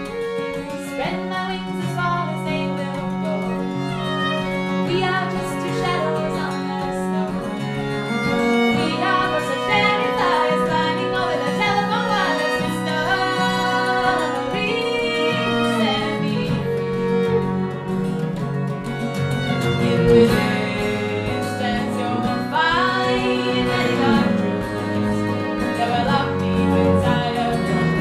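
Acoustic string band playing: a fiddle carries the melody over acoustic guitar and upright bass.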